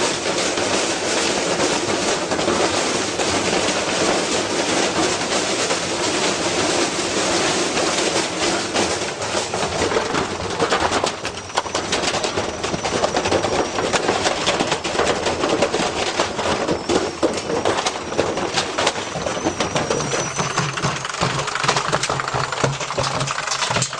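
Washing machine spinning a heavy, badly unbalanced load, clattering and banging fast and without a break as it shakes itself apart. About 20 seconds in, a low steady motor hum comes through under the rattling.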